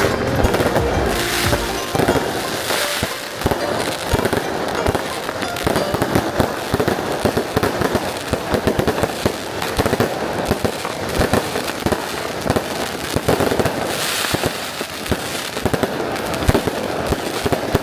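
Fireworks and firecrackers going off in a dense, near-continuous string of sharp pops and bangs, many a second, with no let-up.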